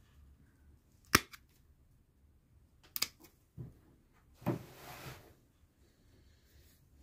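Hand pruning shears snipping through the woody stems of panicle hydrangea seedlings: one sharp snip about a second in, the loudest, a quick double snip around three seconds, then a longer crunching rustle of twigs a little later.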